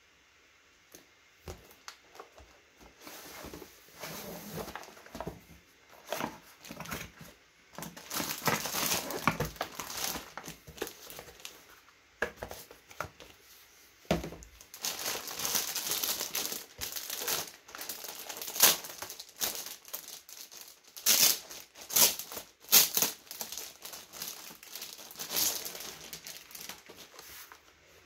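Plastic wrapping crinkling and rustling in irregular bursts as a keyboard is unpacked from its box and clear plastic bag. It starts a few seconds in and is loudest in the second half.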